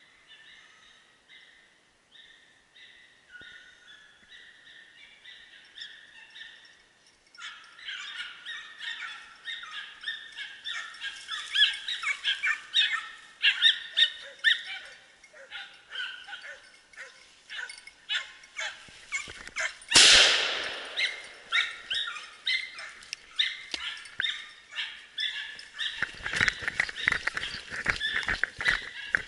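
A pack of hunting hounds baying, faint at first and much louder from about seven seconds in, as the dogs work a drive. About twenty seconds in comes a single loud gunshot, and near the end there are footsteps through dry grass.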